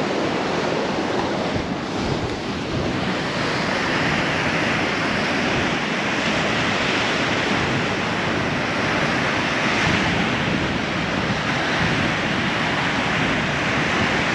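Ocean surf breaking and washing ashore in a steady rush that surges louder a few times, with wind buffeting the microphone.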